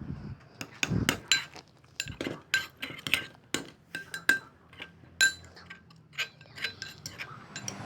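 A stirring utensil clinking and knocking against the side of a container, several irregular strikes a second with a short ring, as slime is stirred after more liquid detergent goes in.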